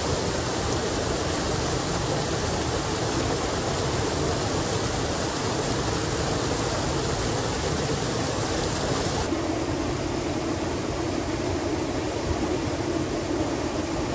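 Steady rush of flowing stream water, even and unbroken; about nine seconds in it abruptly turns duller.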